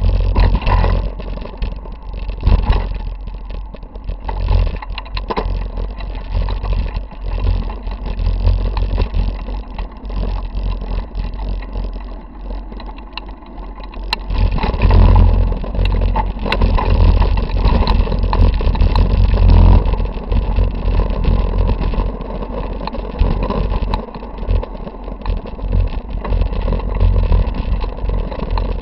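Mountain bike rolling over a rocky dirt trail, heard through a handlebar-mounted camera: a heavy wind and vibration rumble with a steady run of knocks and rattles from the bumps. It eases off for a few seconds about a third of the way in and gets loud again about halfway through.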